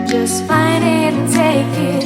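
Background pop music: a song with acoustic guitar and a sung vocal line that comes in about half a second in.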